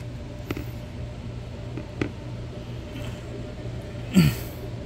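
A few faint clicks and rustles as a BMW 528i's plastic-framed cabin air filter is handled, just after it comes out of its housing, over a steady low hum. Near the end comes one short, loud grunt-like vocal sound that falls in pitch.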